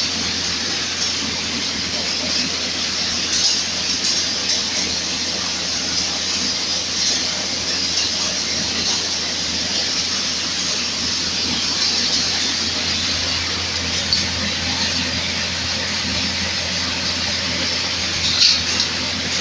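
Groundnut processing machine with a sieve and blower running steadily: a constant motor hum under a continuous rattle of peanuts moving over the sieve and pouring out.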